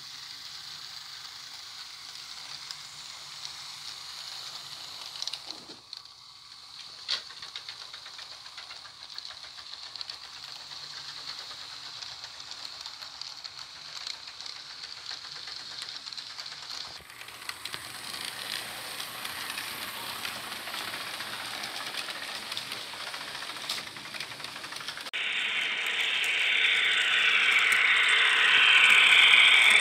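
HO-scale model trains running on a layout: the steady whirr of the locomotive motors and gears with light clicking of wheels over rail joints. It gets much louder near the end as a locomotive passes close by.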